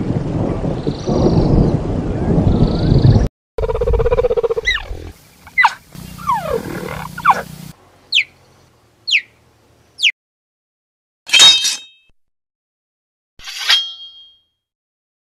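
Intro sound effects: a rushing noise that cuts off about three seconds in, then a few quick falling tones, then two metallic ding hits with a ringing tail near the end.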